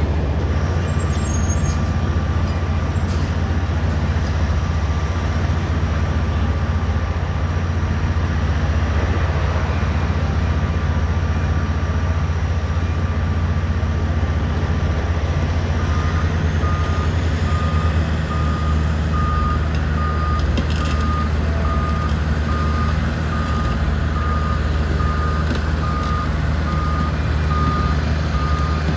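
Kobelco excavator diesel engines running steadily under load. About halfway through, a backup alarm starts beeping at an even pace.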